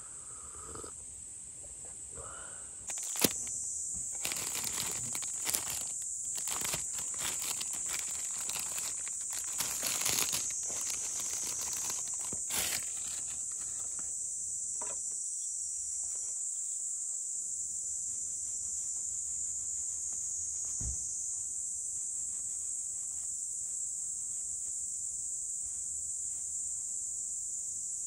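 A steady high insect drone, with a run of crinkling and rustling handling noises lasting several seconds near the start, then fainter scattered clicks and scrapes.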